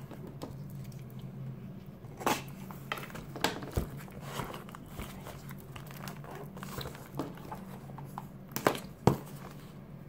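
A cardboard mailer box being opened by hand: scattered rustling, scraping and crinkling of the flaps and packing, with a few sharper cardboard snaps about two seconds in and twice near the end, over a low steady hum.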